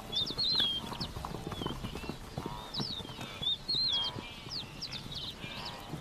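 Savanna ambience at dawn: birds calling in quick whistled notes, over low calls and knocking hoof sounds from a herd of large grazing animals.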